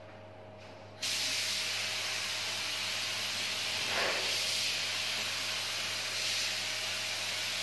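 Compressed-air paint spray gun with a gravity-feed cup spraying: a steady, loud hiss that starts abruptly about a second in, with a brief swell about four seconds in. A steady low hum runs underneath.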